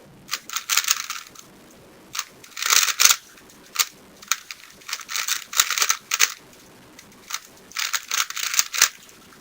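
A 3x3 Rubik's-type speedcube being turned fast during a timed solve: bursts of rapid plastic clicking and clacking as the layers turn, with short pauses between bursts.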